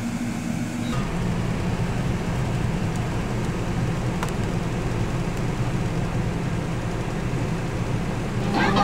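Land Rover engine running steadily, heard from inside the cabin. Music comes in just before the end.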